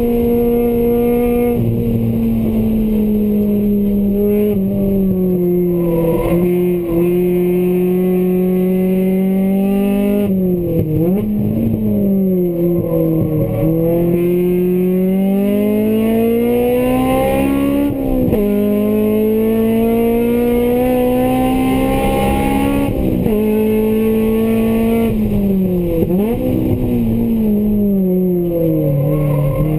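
Honda Integra's four-cylinder engine under hard track driving, heard from inside the cabin. The engine note climbs steadily through the revs and drops sharply several times as the throttle comes off and back on.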